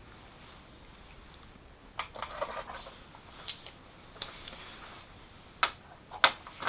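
Hand tools clicking and scraping against metal: a socket being tried on a small alternator nut. A stretch of light scrapes and rattles begins about two seconds in, followed by three sharp clicks near the end.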